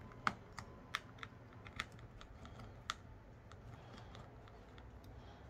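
Faint, irregular small clicks and taps, about a dozen over a few seconds, from small tools and parts being handled while a Samsung Galaxy A21s smartphone is taken apart.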